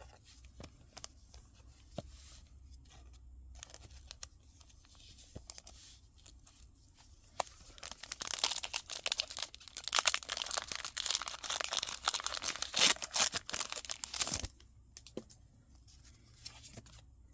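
Foil wrapper of a Pokémon booster pack being crinkled and torn open, a dense crackling about eight seconds in that lasts some six seconds, after light handling clicks.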